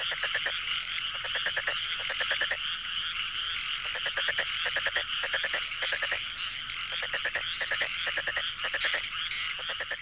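Chorus of many frogs calling at once. Trains of rapid pulsed croaks overlap with short rising chirps, repeated about once a second, over a steady trilling background.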